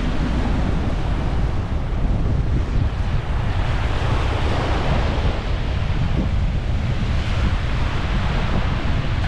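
Sea waves washing against the shore, a steady hiss that swells and eases, with strong wind rumbling on the microphone underneath.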